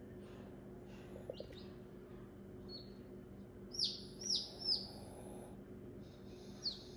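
Newly hatched chicks peeping: three loud falling peeps in quick succession about four seconds in and another near the end, with fainter peeps earlier, over a faint steady hum.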